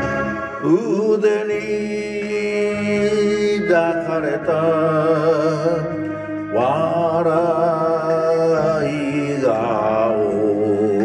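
A man singing a slow Japanese ginei kayō ballad in shigin style, long held notes with wide vibrato, over a steady recorded accompaniment; the line breaks into a new phrase twice.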